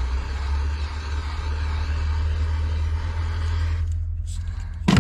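Heat gun running steadily while shrinking heat-shrink tubing onto a battery cable end, cutting off abruptly about four seconds in, then a single sharp knock near the end.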